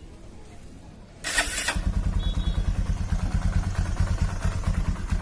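TVS Apache RTR's air-cooled single-cylinder engine started about a second in, catching at once and settling into a steady idle with an even, rapid exhaust beat. The Euro-suction (secondary-air) pipe is blocked, so no air or gas puffs from it while it idles.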